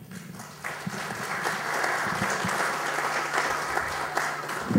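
Audience applauding, the clapping swelling about half a second in and dying away near the end.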